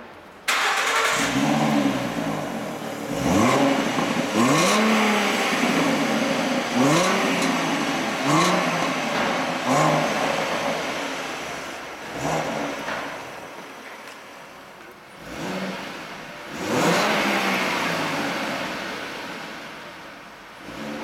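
Ford Mustang V6 with a GT exhaust system being revved while parked, in a string of short throttle blips, each rising and falling in pitch, followed near the end by a couple of longer revs that settle back toward idle.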